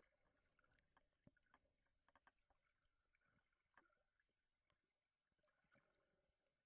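Near silence underwater, with faint scattered clicks and crackles.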